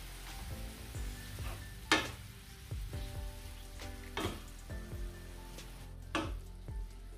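Flowering cauliflower sizzling as it is stir-fried in a nonstick pan with a wooden spatula. The spatula knocks against the pan three times about two seconds apart, the first the loudest.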